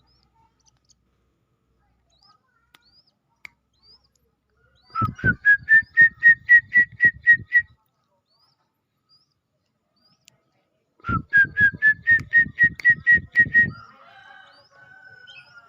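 A small falcon (alap-alap) giving its shrill, rapidly repeated kee-kee-kee call in two bursts, each of about a dozen notes that rise at first and then hold steady. A faint falling whistle follows near the end.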